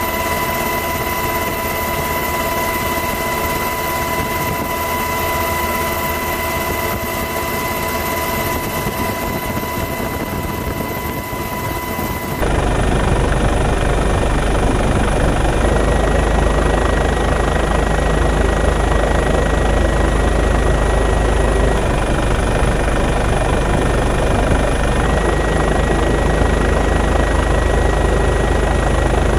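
Steady helicopter noise heard from aboard during aerial filming. About twelve seconds in, it switches abruptly to a louder, deeper sound.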